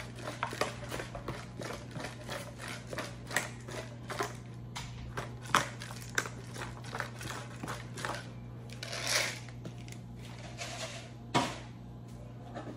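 Disposable black-pepper grinder twisted over salad bowls: a run of quick clicking crunches as the peppercorns are ground, stopping about eight seconds in. A single sharp knock comes near the end, over a steady low hum.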